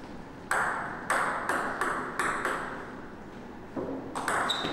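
Table tennis balls cracking off rubber bats and bouncing on the table in a multiball drill, as balls are fed from a box and returned. The knocks come two to three a second, with a short lull about three seconds in.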